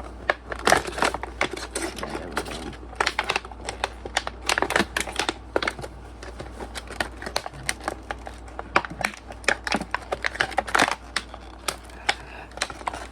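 Stiff plastic blister packaging crackling and clicking as it is bent and pried apart by hand to free a flashlight, in a fast, irregular run of sharp snaps.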